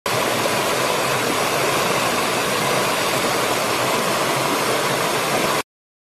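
Shallow rocky stream rushing over stones in small cascades: a steady, even rush of water that cuts off suddenly near the end.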